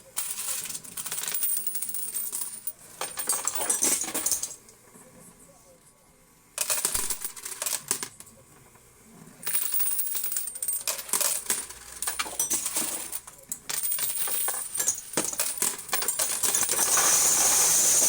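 Quarters clattering in a coin pusher machine: coins dropping and clinking against each other in bursts. After two brief lulls in the first half, the clatter becomes nearly continuous and louder toward the end.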